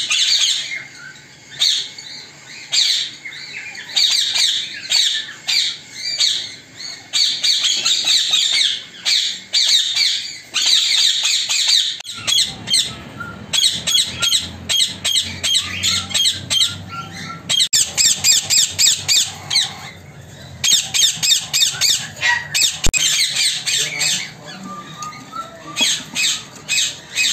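Ringneck parakeets squawking: rapid, repeated trains of short, harsh, high-pitched calls, with a few brief pauses. A low background rumble joins about halfway through.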